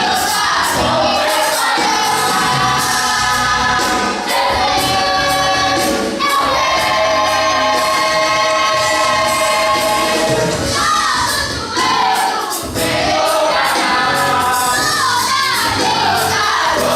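A vocal group singing a gospel song together, with musical accompaniment.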